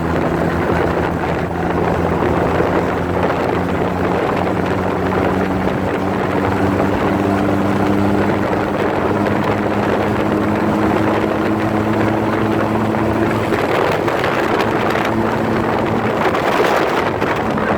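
Tricycle's engine running under way, its pitch climbing slowly as it gathers speed, with wind noise on the microphone.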